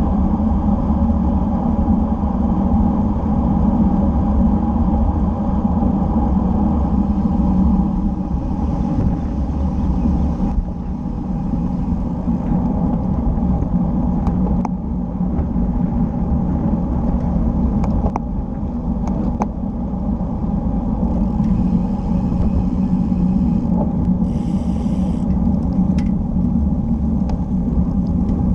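Steady rumble of wind and tyre-on-asphalt noise picked up by a bicycle-mounted camera's microphone while riding, with a few sharp clicks around the middle.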